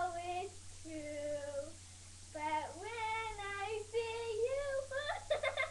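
A young girl singing to her sock puppet, holding and gliding between notes, with a short break about two seconds in and a climb to higher notes near the end.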